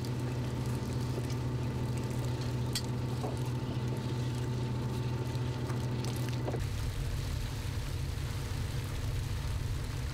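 Steady low drone of a sardine seiner's engine running, with a light hiss over it and a few small clicks from work on deck. About two-thirds through, the drone changes to a rougher, lower rumble.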